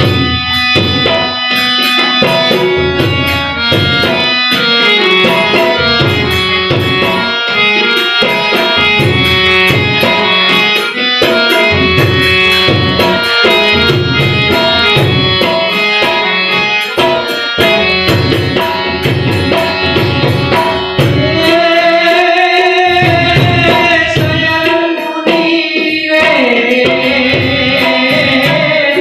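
Harmonium and tabla playing a Gujarati folk song at a steady rhythm, the tabla strokes regular under the held harmonium chords. A man's singing voice comes in about two-thirds of the way through.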